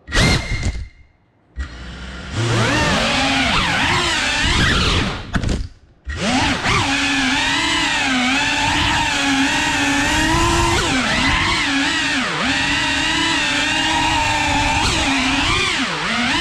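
FPV quadcopter's brushless motors and propellers whining, the pitch rising and falling with throttle. A short burst at the start drops almost to nothing for about a second, then the sound builds up again. It cuts out briefly about six seconds in before running on continuously with swinging pitch.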